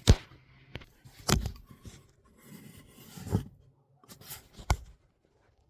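Hands handling a small flashlight fitted with a plastic diffuser: several sharp clicks and knocks about a second apart, with light rubbing and scraping between them.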